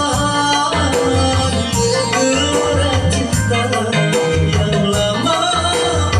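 Instrumental break of an Indonesian pop song played through a home sound system, with a steady bass-and-drum beat and melody instruments.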